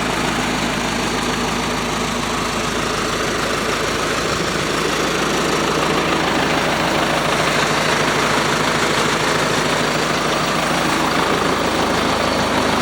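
John Deere 4045 4.5-litre four-cylinder diesel engine of a wood chipper running steadily.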